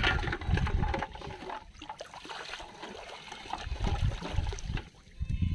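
Shallow water splashing and sloshing as a caught fish drops into a water-filled metal pot and hands move through the flooded marsh. The splashing is loudest right at the start, then goes on as irregular trickling and sloshing.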